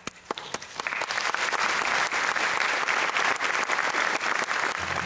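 Theatre audience applauding: a few scattered claps swell within the first second into full, steady applause. A low sustained instrumental note comes in near the end.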